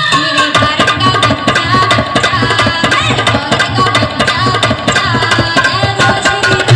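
Loud music played through a DJ sound-box system: a fast, dense drum beat under a melodic line.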